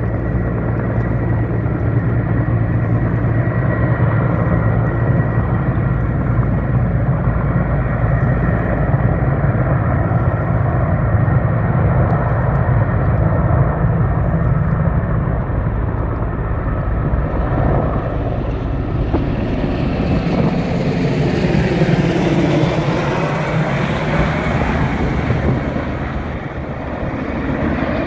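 Firefighting sky crane helicopter (Sikorsky S-64 type) hovering low over the river to draw water through its snorkel: a steady, loud, low rotor and turbine drone. About two-thirds through, a wider rushing rotor and turbine sound swells and fades again as a second helicopter comes in.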